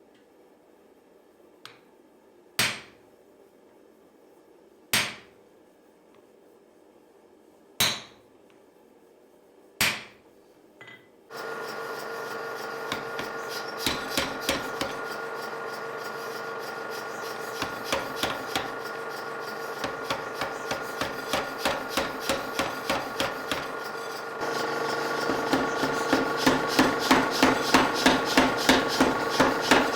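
Hammer blows on hot steel at the anvil: first four single ringing strikes a couple of seconds apart, then runs of quicker hammering, about three blows a second near the end. From about a third of the way in, a steady background noise runs under the blows and steps up louder later on.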